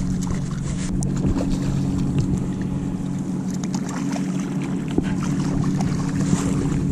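A steady low drone of several held tones, with lake water sloshing and lightly splashing close by.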